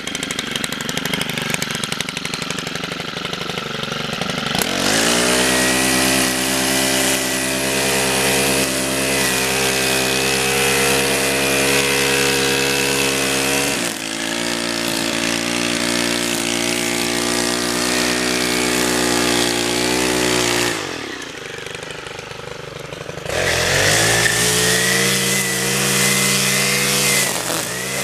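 Stihl FS90R string trimmer's 4-MIX engine idling, then throttled up to a steady full speed about five seconds in, with the nylon line in its Shindaiwa Speed-Feed 400 head cutting grass. It falls back to idle for a couple of seconds a little past the twenty-second mark, then revs up again.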